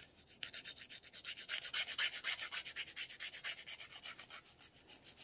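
A grit nail file rasping back and forth across the free edge of a natural fingernail in quick, even strokes, about eight a second, shaping the nail. The strokes start about half a second in.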